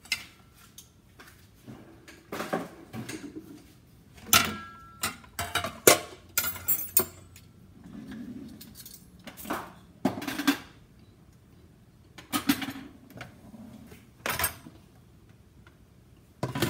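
Dishes and utensils clattering and clinking as they are handled, in irregular knocks, with a brief ringing clink about four and a half seconds in.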